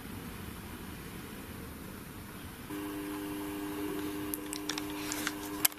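Faint hiss of room tone, then from about three seconds in a steady low hum of a few held tones, with a handful of sharp clicks toward the end.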